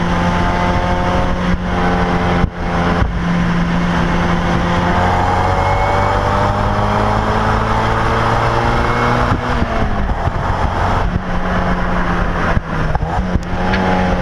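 Mazda NC Miata's 2.0-litre four-cylinder running through a Flyin' Miata axle-back exhaust while driven under load, about 10 to 15% louder than the stock muffler. The note climbs steadily for several seconds from about five seconds in, then drops suddenly near the middle, as at a gear change. A few brief dips in the note come in the first three seconds.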